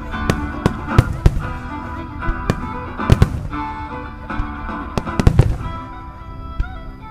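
Starmine fireworks: aerial shells bursting in a rapid barrage, a dozen or so sharp bangs at irregular intervals, some in quick pairs, over background music.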